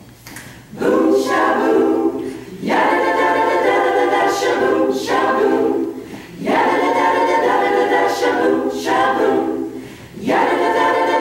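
Women's a cappella group singing a 1950s doo-wop number in close harmony. The singing starts about a second in and comes in four phrases with short breaks between them.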